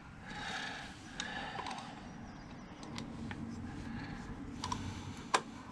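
Small clicks and taps of a screw and screwdriver against a plastic engine-mount cover plate as the screw is positioned and started, with the sharpest click a little over five seconds in.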